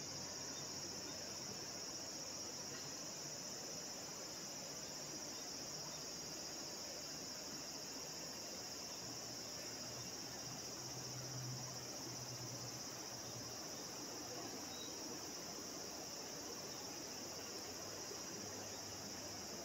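Steady high-pitched chorus of insects such as crickets, with a faint low hum for a few seconds in the middle.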